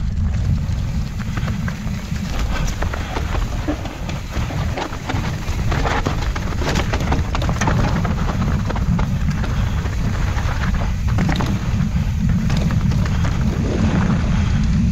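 Mountain bike descending a dirt trail: wind buffeting the camera microphone in a steady low rumble, with tyres crunching over the dirt and the bike rattling and clicking over bumps.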